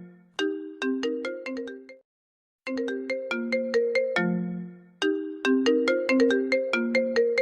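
iPhone ringtone: a repeating melody of quick, plucked-sounding notes. It cuts off to silence for about half a second, about two seconds in, then the phrase starts again.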